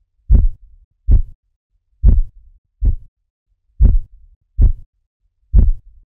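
Korotkoff sounds heard through a stethoscope as a blood pressure cuff deflates: seven short, low taps, a little under one a second, from blood turbulence in the artery. The cuff pressure lies between systolic and diastolic, so each pulse still taps.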